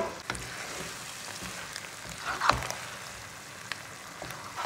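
Mustard-greens saag sizzling gently in hot desi ghee in a nonstick pan, with a few scrapes and knocks of the slotted spoon stirring it, the loudest about two and a half seconds in.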